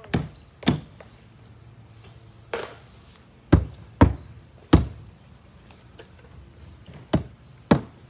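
Eight sharp knocks and thunks from construction work, at irregular intervals, several of them in pairs about half a second apart, over a faint steady hum.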